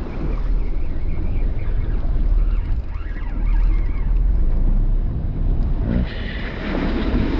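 Wind buffeting the microphone over the wash of rough sea against a boat, a steady low rumble. Near the end the wash turns hissier and more splashy.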